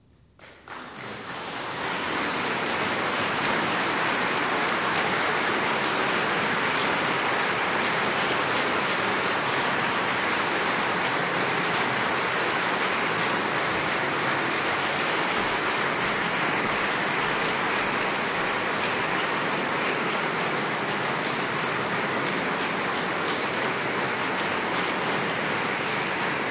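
Concert-hall audience applauding, a dense, steady clapping that breaks out about half a second in and keeps going evenly.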